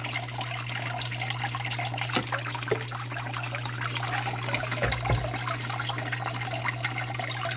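Thin sheet of water running and trickling across a Miller table's green deck, over a steady low hum.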